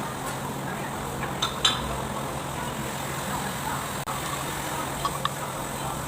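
Steady mechanical hum with a few light metallic clinks, twice near the start and twice near the end.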